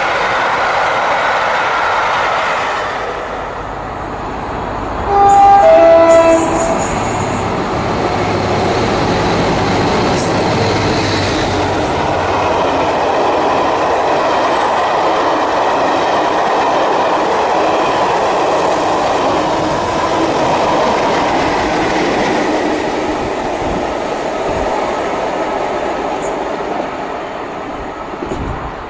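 Diesel-hauled passenger train passing with the steady running noise of coaches on the rails. About five seconds in, the train sounds its two-tone horn, high note then low, which is the loudest moment.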